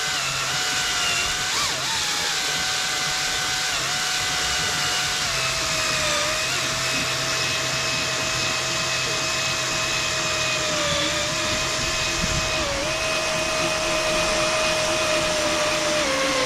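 Electric drill running slowly and steadily, boring a hole through the motorhome's side wall from a pilot hole. Its motor whine dips slightly in pitch now and then as the bit bites.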